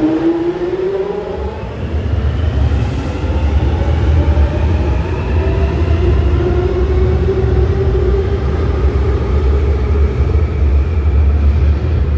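A London Underground 1996 Tube Stock Jubilee line train pulling out of the station. Its traction motors whine, rising in pitch as it accelerates, and a heavy low rumble builds about two seconds in as it gathers speed into the tunnel.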